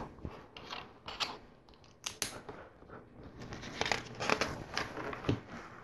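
Small plastic LEGO pieces being handled and pressed together: a scatter of light clicks and taps, with a few sharper ones a couple of seconds in and again near the end.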